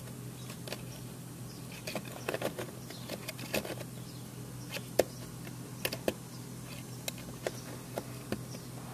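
Scattered light clicks and taps from a soldering iron's tip working against the plastic of a kayak hatch cover as it melts the plastic to reinforce a repair, over a faint steady low hum.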